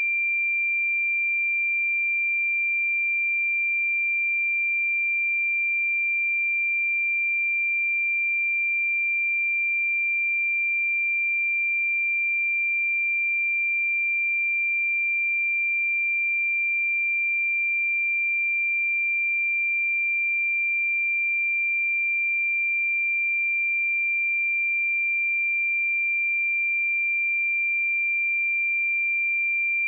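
Pure 2371 Hz sine-wave test tone, one steady high-pitched note at constant loudness.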